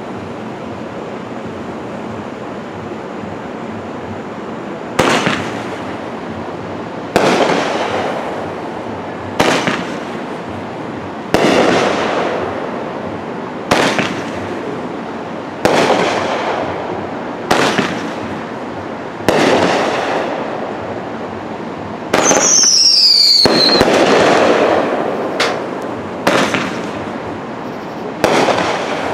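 Iron Man Fireworks Laser Blitz, an 18-shot 500-gram cake firework, firing its shots one after another. The first comes about five seconds in, then roughly one every two seconds; each is a sharp bang followed by a hiss that fades over a second or two. About 22 seconds in, a falling whistle is followed by a longer, denser burst.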